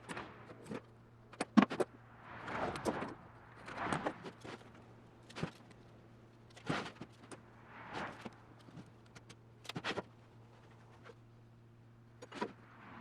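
Workshop handling sounds while working on wooden vise parts and hardware: scattered sharp clicks and knocks and several short scraping or sliding sounds, over a faint steady hum.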